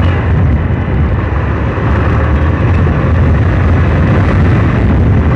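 Hero ZMR motorcycle being ridden at speed: a steady, loud rush of wind and engine noise.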